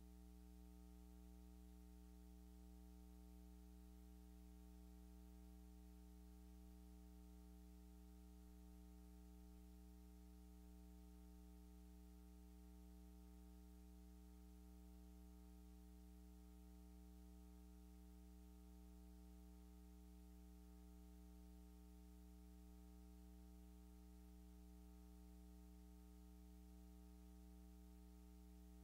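Near silence with a faint, steady low hum that never changes.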